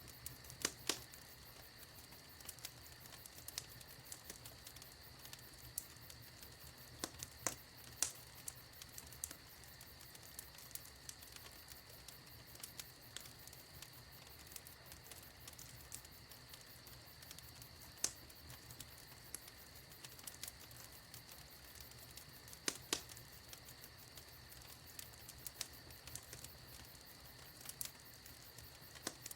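Wood fire in a fireplace crackling: frequent small snaps and a few sharper pops over a faint steady hiss.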